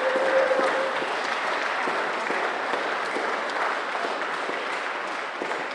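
Audience applauding at the end of a song, a steady patter of many hands that slowly dies down.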